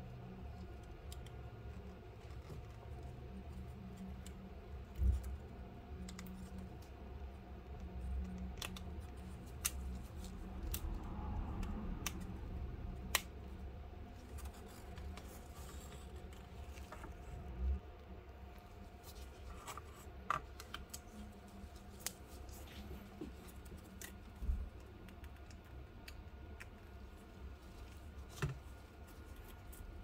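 Handling noise from a Samsung Galaxy Tab A tablet being worked on with gloved hands: scattered small clicks and scratches of plastic frame and flex cables, with a few louder knocks on the work surface, over a low steady hum.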